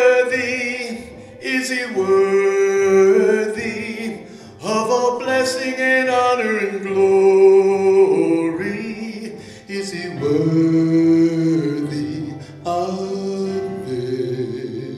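Man singing a slow hymn solo, holding long notes with vibrato and breaking for breaths between phrases, over a soft instrumental accompaniment.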